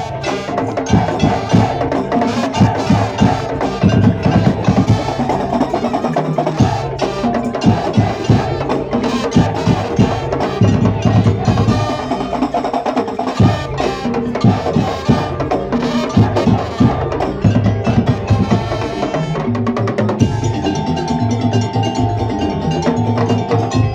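Madurese ul-daul percussion ensemble playing a fast, driving rhythm: dense strikes on wooden slit drums and drums under ringing bell-like tones.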